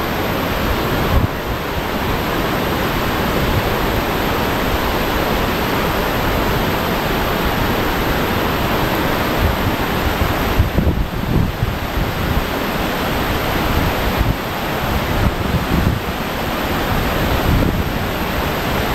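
Loud, steady rush of water pouring down a sloped concrete dam spillway into a muddy river, with gusts of wind thumping on the microphone.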